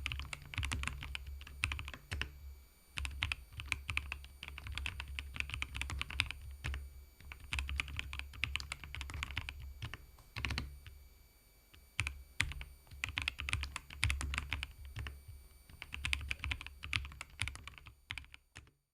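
Typing on a Keychron V1 Max mechanical keyboard, sold for how quiet it is: runs of rapid keystrokes broken by short pauses. The last run stops just before the end.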